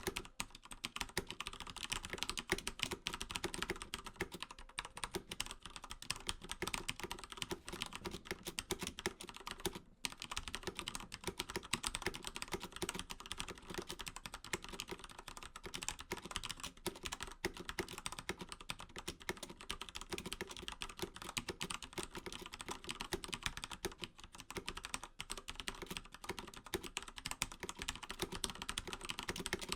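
Fast, continuous typing on a mechanical keyboard with linear key switches: a dense patter of keystrokes with a brief pause about ten seconds in.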